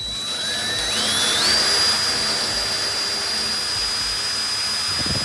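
DeWalt 20V Max cordless drill spinning up in its low (first) speed gear: a whine that rises quickly over the first second and a half, then runs at a steady high pitch.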